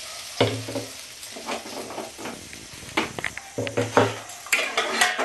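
Metal ladle stirring moong dal in a large aluminium pot of hot water, with irregular clicks and clanks of the ladle on the pot, thickest near the end.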